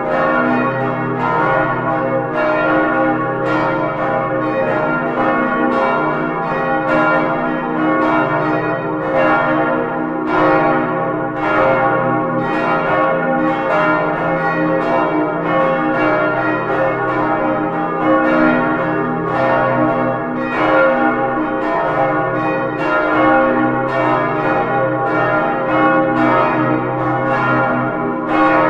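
Full peal of five swinging church bells, cast in 1947 by Albert Junker of Brilon and tuned to D♭, E♭, F, A♭ and B♭, heard close up in the belfry. Their strokes fall unevenly and overlap over a continuous ringing hum.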